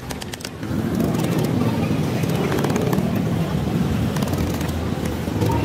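A few quick light hammer taps on the wooden frame around the steel core of a home-built welding transformer. About a second in, a steady low engine rumble, like a vehicle running close by, starts and covers the rest.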